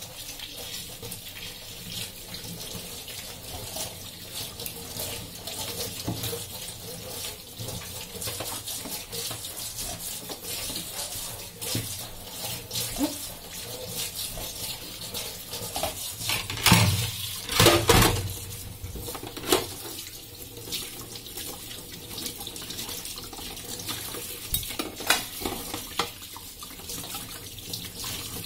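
Tap water running into a stainless steel kitchen sink while hands and dishes are rinsed and scrubbed under the stream, with scattered knocks of crockery against the steel basin, the loudest a little past halfway.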